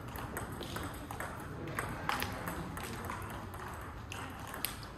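Table tennis ball strikes: sharp, irregular clicks of the celluloid/plastic ball on bats and table, about two a second, over a steady low background rumble of the hall.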